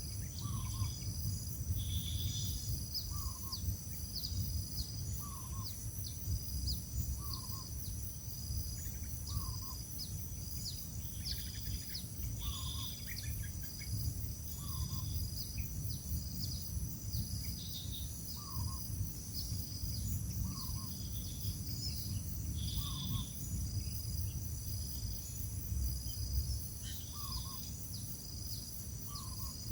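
Short bird chirps repeating about once a second, with quicker high peeps in between, over a steady low rumble and a constant high insect-like ringing.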